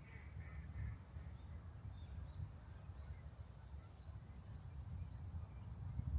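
Faint bird calls: a short run of calls in the first second, then scattered high chirps, over a steady low outdoor rumble.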